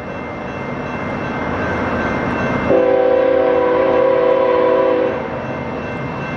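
Approaching BNSF freight train led by a GE ES44AC diesel locomotive, its rumble growing louder. About three seconds in, the locomotive's air horn sounds one long multi-note chord for over two seconds, then cuts off.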